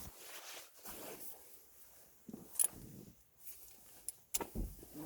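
Light clicks, rustles and small knocks of hand work on the shifter's mounting bolts inside a car's center console, with a sharp metallic click about halfway through and a couple of knocks near the end.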